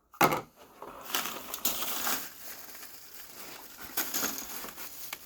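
Items being handled in a box of supplies: a sharp knock just after the start, then irregular rustling and crinkling of packaging.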